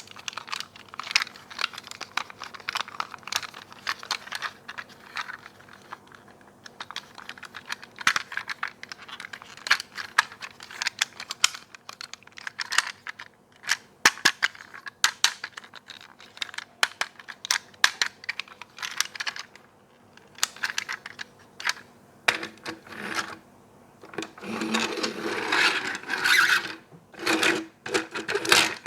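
Small hard plastic toys and packaging being handled: a fast, irregular run of sharp clicks and taps, turning to a stretch of scraping and rubbing a few seconds before the end.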